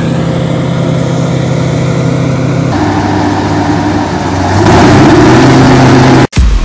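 Diesel farm machinery running steadily, then a Claas Jaguar forage harvester working in maize, its engine rising in pitch and the machine growing much louder and noisier about five seconds in. The sound cuts off abruptly near the end.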